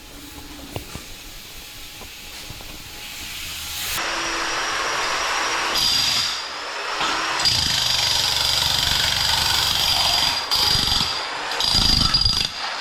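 A power tool running in several stretches, with a steady high whine, starting about four seconds in and stopping and restarting a few times.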